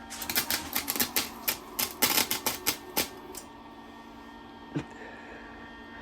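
Electric arc welder crackling and sputtering as the arc strikes in quick uneven bursts for about three seconds, then stops; one more short crack follows near the end.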